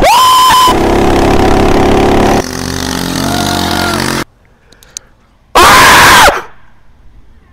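A young man screams very loudly twice. The first scream is at the start and is cut off after under a second; the second is short and comes about six seconds in. Between them is a steady rumbling noise that drops off abruptly about four seconds in.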